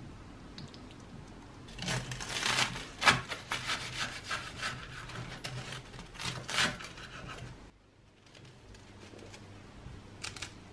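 Knife sawing through a slice of toast on a wooden cutting board: a run of short scraping strokes from about two seconds in until nearly eight seconds, the loudest about three seconds in.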